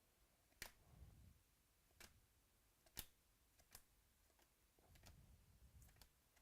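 Near silence with a few faint, sharp clicks at irregular intervals, the loudest about three seconds in, from trading cards and packs being handled during a card break.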